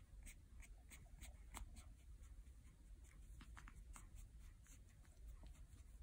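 Faint scratchy rubbing of fingers massaging a puppy's back through its fur, a few light scratchy ticks a second.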